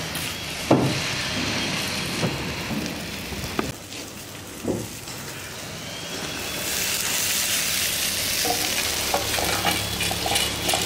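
Sautéed shallots, dried chillies and whole spices sizzling in a hot kadai, the masala done and ready for grinding, with a few sharp knocks in the first half. Near the end, many small clinks and rattles as the contents are tipped out onto a steel plate.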